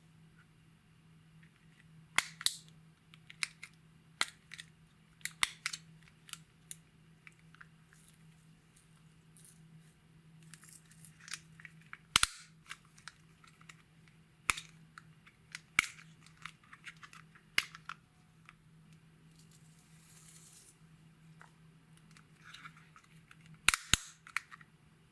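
Slime being worked by hand, making irregular sharp pops and clicks. The loudest pops come about two seconds in, around the middle, and again near the end.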